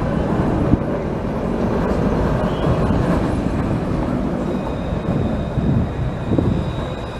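Barcelona tram, an Alstom Citadis low-floor light-rail vehicle, passing close by: a steady rumble of steel wheels on rail, with a faint high steady whine joining about two-thirds of the way through.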